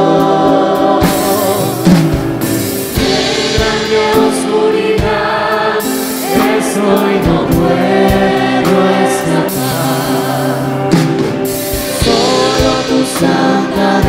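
Live worship song played by a band with drum kit, with voices singing the melody. Cymbal crashes ring out a few times, about 1, 3, 6 and 11 seconds in.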